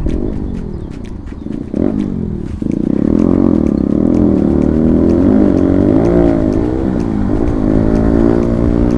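Bajaj Pulsar NS200 single-cylinder engine through a full-system aftermarket exhaust, revs falling off for the first couple of seconds. About two and a half seconds in it opens up loudly, its pitch rising and dipping through gear changes, then climbing steadily near the end as the bike accelerates.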